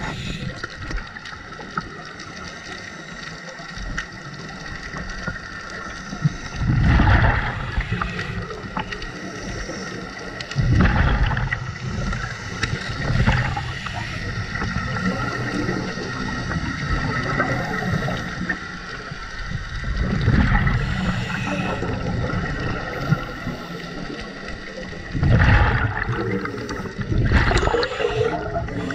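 Scuba regulator breathing underwater: loud gurgling bursts of exhaled bubbles about every four to six seconds, six in all, over steady underwater background noise.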